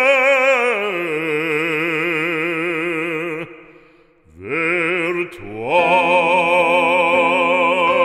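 Operatic solo voice with strong vibrato singing long, sustained notes of a French hymn. The voice breaks off briefly about halfway through, then comes back with a rising note that it holds.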